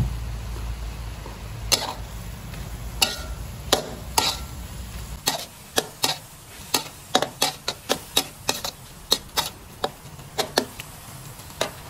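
Metal spatula clanking and scraping against a metal wok while stir-frying pork in sauce, with a light sizzle. A few separate clanks come first, then a quick run of about two or three a second from about halfway. A low hum stops about halfway.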